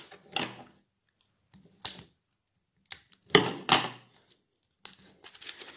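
Plastic toy blind-ball capsule being worked open by hand: a few separate sharp plastic clicks and cracks, the loudest a little past halfway, then light rustling near the end.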